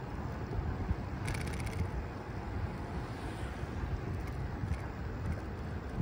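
Wind noise rumbling on the microphone of a moving rider, with a brief run of fast clicking about a second in.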